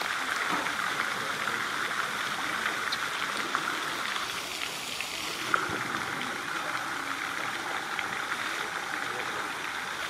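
Steady even background noise with faint scattered ticks, and one sharp click about five and a half seconds in.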